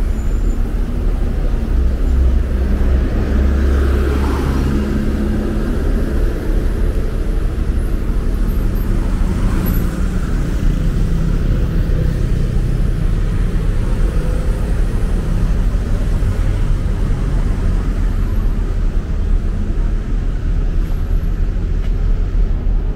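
Road traffic on a busy multi-lane city street: cars, taxis and buses passing in a steady low rumble. A loud low rumble swells about two to five seconds in, and another vehicle passes close about ten seconds in.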